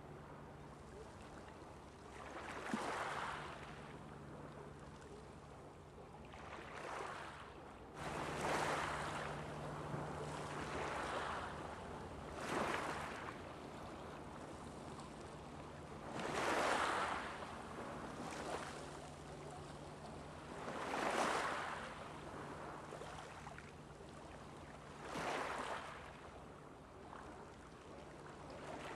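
Small waves washing onto a beach, each surge swelling and fading over about a second, every few seconds. A steady low hum runs underneath.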